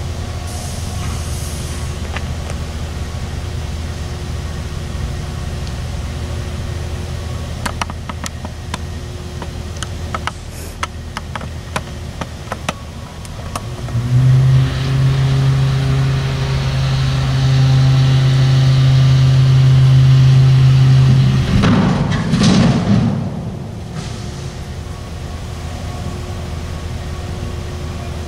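Steady engine hum, with a much louder, steady engine drone for about seven seconds past the middle, ending in a short rush of noise.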